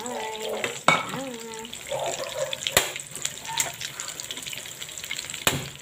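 A pot of fish broth bubbling at the boil while a metal ladle scoops and pours the liquid, with three sharp knocks of the ladle against the pot.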